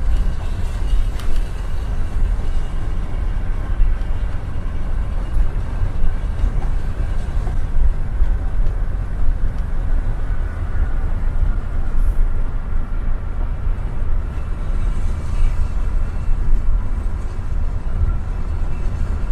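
Hino coach at highway speed heard from inside the cabin: a steady low rumble of engine and road noise.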